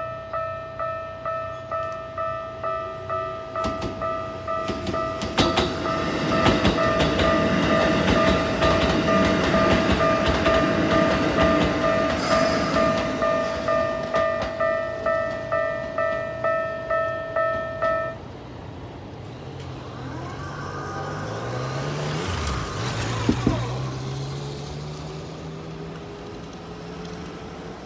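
Japanese level-crossing warning bell ringing in a steady repeating pulse, a little under two strikes a second, while a train runs over the crossing with wheel clatter. The bell stops about 18 seconds in, and then an electric train's whine rises in pitch as it pulls away.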